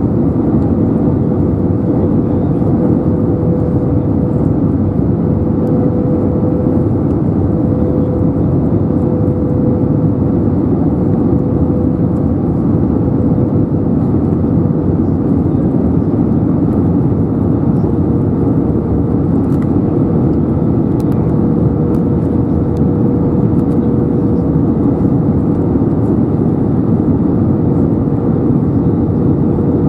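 Cabin noise of an Airbus A320neo on approach with flaps extended, heard from a window seat by the wing. It is a steady rush of airflow over the airframe mixed with its Pratt & Whitney PW1100G geared turbofans running, with a constant mid-pitched hum through it.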